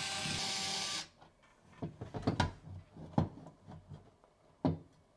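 Cordless drill-driver running for about a second, with a steady whine, driving a screw into a drywall toggle anchor. It is followed by several separate light knocks and clicks of hardware being handled.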